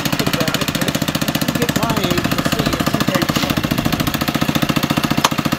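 Harbor Freight Predator 212cc single-cylinder engine on a mini bike idling steadily, with a rapid even firing beat. A single sharp click about five seconds in.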